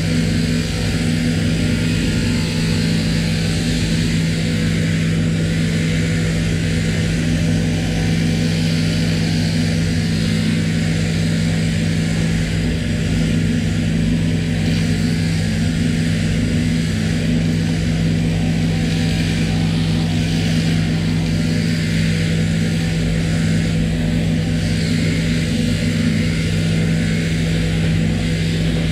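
Electric sheep-shearing machine running steadily, its motor and handpiece giving a constant hum with a hiss from the cutter.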